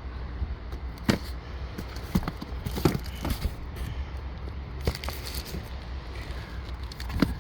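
Boxed electronics being handled: cardboard product boxes knocking, sliding and rustling as they are shifted, with several separate knocks spread through, over a low steady hum.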